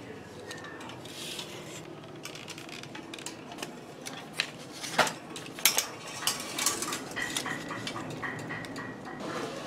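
Handling noise from a wooden winding shuttle loaded with enamelled copper wire: light scrapes and irregular clicks and taps, with the sharpest clicks about four to seven seconds in.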